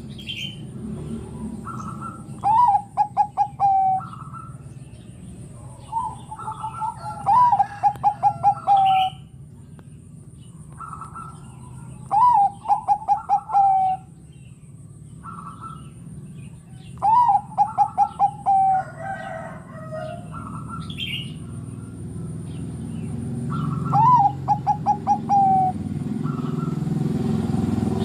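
Caged Bangkok-type zebra dove (perkutut) cooing its song. Five phrases come about every five seconds, each a rising note followed by a quick run of short staccato coos. Fainter chirps from small birds sound in between.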